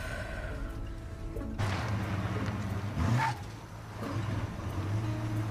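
Pickup truck engine running with tyre noise on the road as it pulls over, and a louder rush of road noise between about one and a half and three seconds in.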